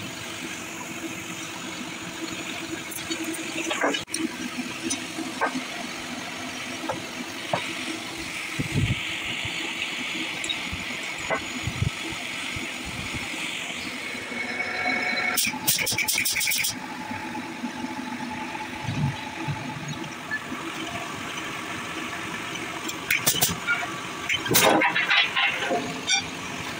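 Metal workshop ambience: a steady machine hum under scattered metallic clicks and knocks from hand work on steel plate. About halfway through there is a quick run of rattling clicks, and near the end a cluster of louder knocks.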